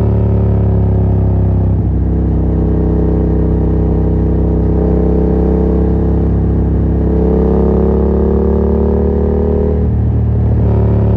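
Yamaha MT-07's 689 cc parallel-twin engine running through a Yoshimura R77 exhaust with the dB killer removed, pulling under steady throttle with its pitch slowly rising. Near the end the pitch breaks and drops, as at an upshift.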